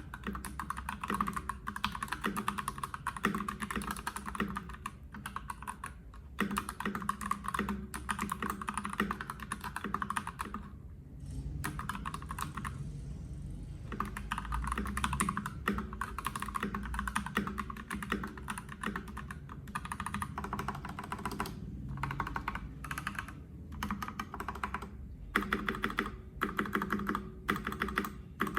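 Typing on a HelloGanss HS87T mechanical keyboard with linear Gateron Yellow Pro switches and PBT double-shot keycaps: fast, steady runs of keystrokes, with a pause of a few seconds a little before halfway.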